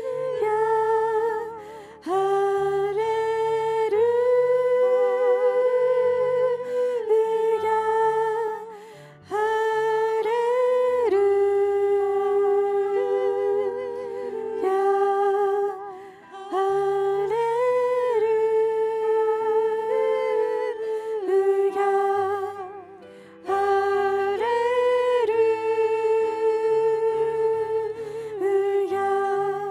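A small group of women singing a slow, repeated 'Hallelujah' in long held notes with vibrato, over soft sustained keyboard chords, with short breaks between phrases.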